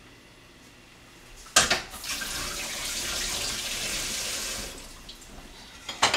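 Kitchen sink tap turned on with a sharp clunk, water running onto hands for about three seconds, then shut off. A single knock near the end.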